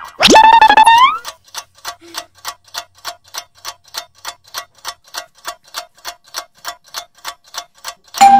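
Clock ticking sound effect, about four even ticks a second, marking time passing. It opens with a short sound effect sliding up in pitch, and a loud hit comes near the end.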